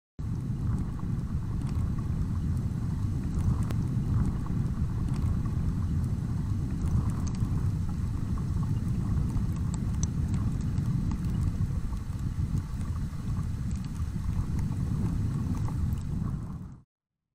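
A steady low rushing noise with a few faint ticks, cutting off abruptly near the end.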